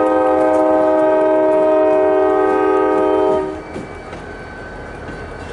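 Diesel locomotive's multi-chime air horn held on one steady chord, cutting off about three and a half seconds in, leaving the low rumble of the locomotives rolling by.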